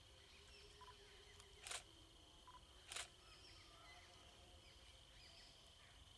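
Faint outdoor forest ambience: a steady high-pitched drone with small bird chirps over it. Two short bursts of noise about a second apart break in near the start.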